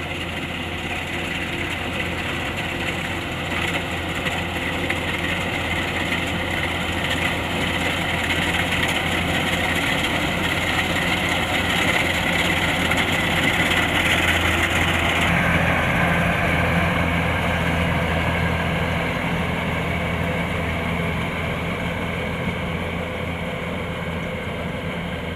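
Kubota combine harvester's diesel engine running steadily under load with the whir of its threshing and cutting machinery, a constant low hum beneath. It grows louder toward the middle and then fades somewhat.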